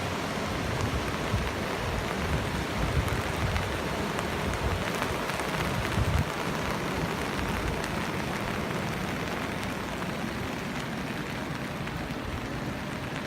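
Heavy rain falling in a steady, even hiss, with a couple of brief low rumbles about three and six seconds in.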